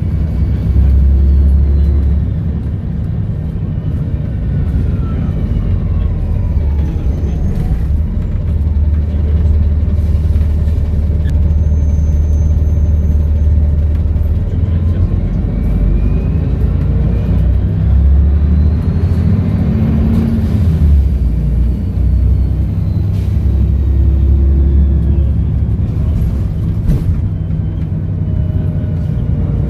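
Volvo B7RLE bus with a Voith automatic gearbox, its diesel engine rumbling as it accelerates and eases off several times. A turbocharger whistle rises and falls over the engine.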